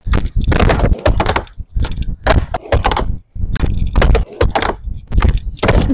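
Skateboard on a wooden backyard mini ramp: wheels rolling over the plywood, with repeated sharp clacks and slams of the board and feet hitting the ramp. The sound breaks off abruptly several times between quickly cut attempts.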